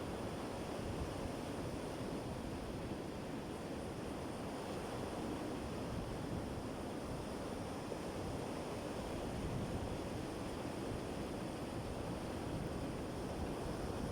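Sea surf: waves washing in as a steady rush of noise, with no single crash standing out.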